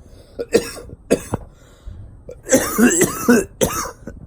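A man coughing from what he calls a very bad cough and a bad flu or something: a few short coughs, then about two and a half seconds in a louder, rapid run of coughs with a strained voice rising and falling through them.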